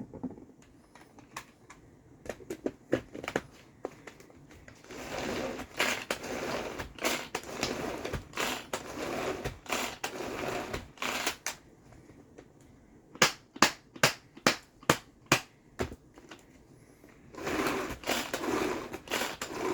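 Tupperware pull-cord chopper blending pesto: repeated pulls of the cord give runs of rapid whirring and rattling from the blades and pesto inside the bowl, broken by a row of sharp clicks about two a second.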